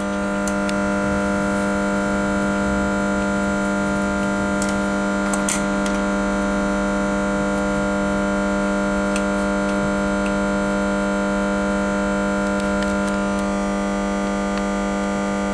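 Steady electrical hum, a low drone with a stack of fixed overtones that holds level throughout and thins slightly near the end, with a few faint clicks.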